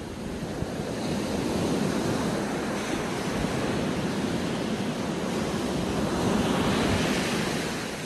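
Sea surf breaking over rocks and washing up a sandy beach, a steady rush of foaming water. It swells about a second in and again near the end, then eases off.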